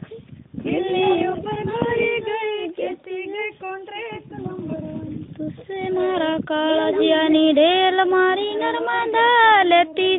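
Female voices singing a Gujarati folk song: a wavering melody with long held notes, pausing briefly at the start.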